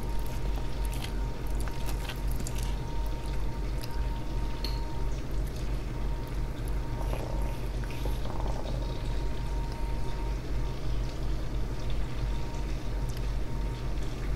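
Steady low hum with a faint steady tone above it, and a few light clicks and scrapes as a metal fork picks up pieces of crispy pork from a wooden cutting board.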